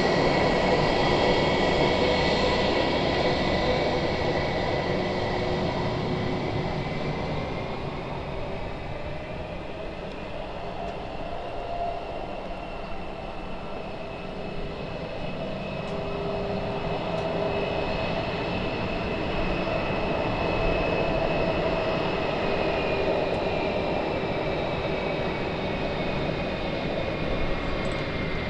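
Airbus A321-200 jet engines running at taxi power: a steady roar with a high whine that slowly rises in pitch and falls back again. The sound fades somewhat midway and then builds again.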